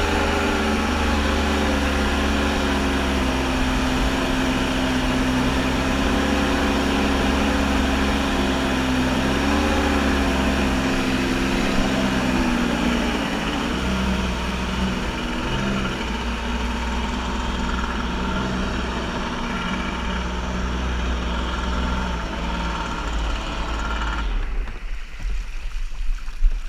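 Kawasaki JS550 stand-up jet ski's two-stroke twin engine running steadily under way, its note dropping a little about halfway through. Near the end the engine note drops out, leaving splashing water.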